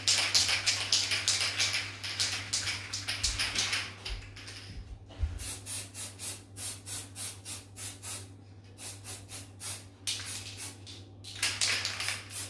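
Aerosol spray-paint can hissing in quick repeated bursts as silver paint is sprayed onto a wooden table. Near-continuous spraying for the first few seconds, then separate short puffs about two a second, then a denser run near the end, with a few low knocks in between.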